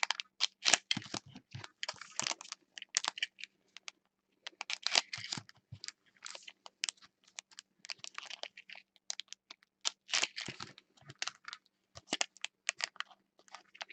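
Trading cards being handled and sorted by hand: irregular light clicks and snaps with a few short rustling swishes of cards sliding against each other.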